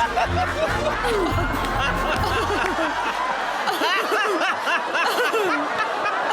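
Several people laughing at once, uncontrollable giggles and chuckles brought on by laughing gas, over background film music. The music's low bass drops out about three and a half seconds in.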